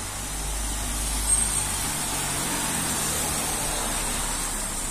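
A small box truck's engine running as it drives slowly along a wet street, over a steady hiss from the wet road. A brief high squeak comes about a second in.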